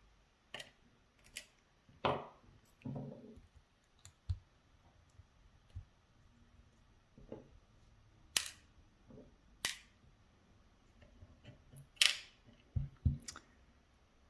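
Small metal parts of a gutted Medeco Biaxial lock being handled on a hard surface: scattered sharp clicks and taps, the loudest about eight, nine and a half and twelve seconds in.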